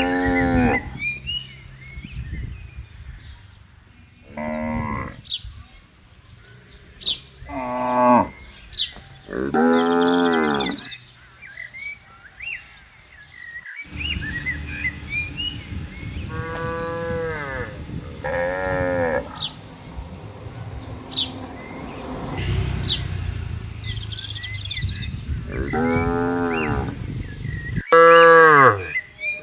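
Cattle mooing again and again, about eight drawn-out calls with a sliding pitch, the loudest near the end. Small birds chirp briefly between the calls.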